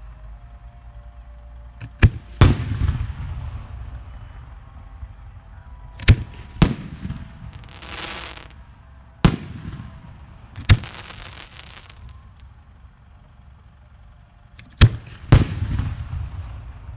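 Aerial fireworks shells bursting: about four pairs of sharp booms, each pair half a second apart, with rumbling echoes after each. A hissing crackle comes about eight seconds in and again around eleven seconds.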